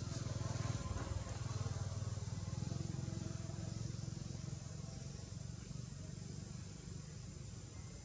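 A distant motor vehicle's low engine hum, swelling in the first few seconds and then slowly fading away, over a steady high insect buzz.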